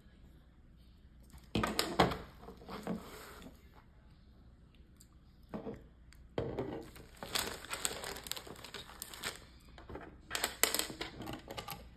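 Plastic Lego pieces being rummaged through and handled, a mix of crinkly rustling and small clicks of bricks, in several bursts with the longest stretch in the middle.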